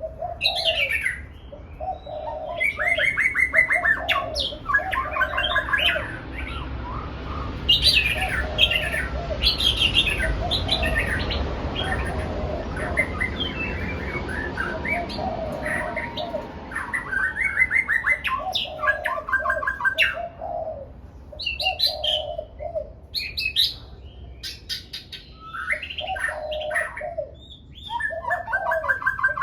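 Red-whiskered bulbuls singing busily, one short whistled phrase after another, over a row of short, low repeated notes. Through the middle a rushing noise swells and then fades under the song.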